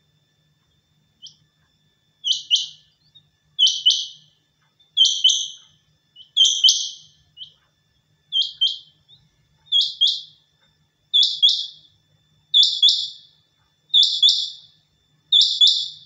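Caged quail calling: a sharp, high two-note call repeated evenly about every second and a half, ten times, starting about two seconds in.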